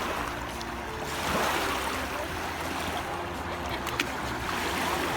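Sea waves washing in on the shore: a steady rushing hiss that swells about a second in.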